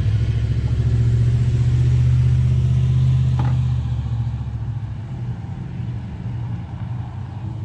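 Low, steady rumble of a motor vehicle engine that grows louder over the first few seconds and then fades away, with a single light knock about three and a half seconds in.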